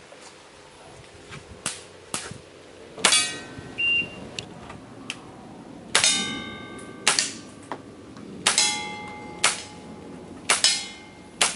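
A string of pistol shots fired at steel plate targets, about one a second with a short pause partway through. Several shots are followed by a steel plate ringing as it is hit.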